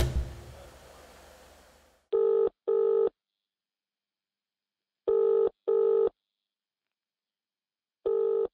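British telephone ringing tone: a double burst of steady tone repeating every three seconds, three times, sounding thin, as heard through a phone handset while a call rings out. Music fades out in the first two seconds before it.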